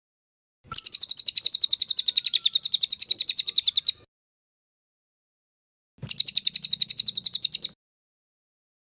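A songbird's rapid 'tembakan' trill: fast, evenly repeated high notes, about ten a second, in two bursts, the first about three seconds long and the second under two, with dead silence between them.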